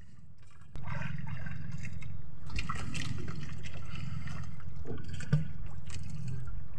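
Sea water lapping and trickling against the hull of a small outrigger boat, a steady noisy wash that jumps louder a little under a second in. There are a few faint clicks and a single short knock about five seconds in.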